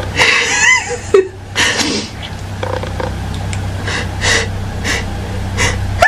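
A woman's sneezing fit: several sneezes in a row with breaths drawn between them. These are her recurring morning sneezes while congested.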